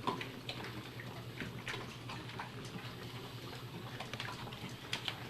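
A dog licking and eating spilled food off the floor: irregular wet clicks and smacks, several a second, over a low steady hum.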